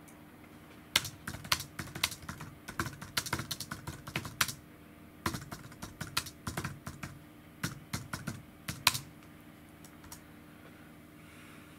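Typing on a computer keyboard: quick runs of keystrokes with a short pause about halfway, stopping about nine seconds in.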